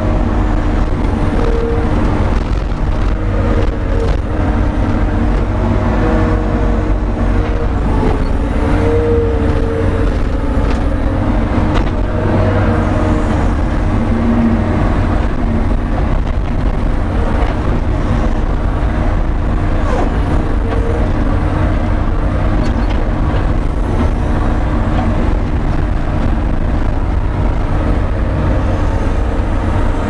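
Diesel engine of a New Holland C185 compact track loader running steadily, driving a hydraulic snowblower that is throwing snow. It is a loud, even drone with a steady hum in it, heard from inside the cab.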